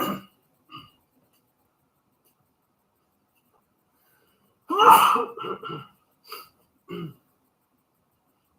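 A man sneezes once, loudly, with a voiced rise and fall about five seconds in, followed by a few short breathy sounds. A brief burst comes at the very start, then a few seconds of quiet.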